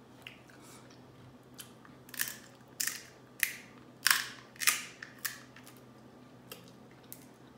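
Boiled crab leg shells being cracked open by hand and with the teeth: a run of about six sharp snapping cracks from about two seconds in, the loudest near the middle, then a few faint ones.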